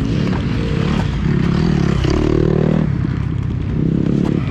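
KTM 85cc two-stroke dirt bike engine revving under throttle, its pitch climbing then dropping about three seconds in, with wind rumble and rattling on a helmet-mounted camera.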